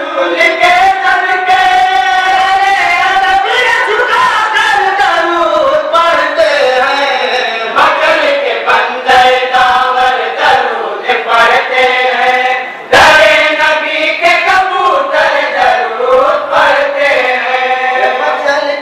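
A group of men singing a chant together in unison into a microphone, with long held, wavering melodic notes. A sharp click cuts in about thirteen seconds in.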